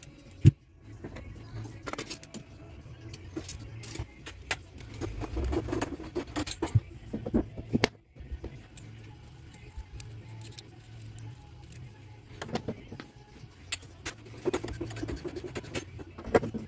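Copper water pipe and fittings being handled and fitted: irregular metallic clinks, taps and knocks, the loudest a sharp knock about half a second in.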